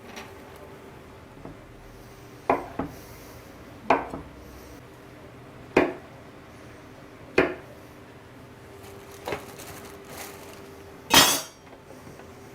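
Kitchen knife quartering mushrooms on a chopping board: six separate chopping knocks, one every second and a half to two seconds, the last near the end the loudest. A faint steady hum runs underneath.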